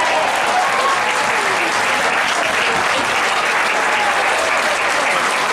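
Football spectators applauding and cheering, with shouting voices mixed in, in celebration of a goal.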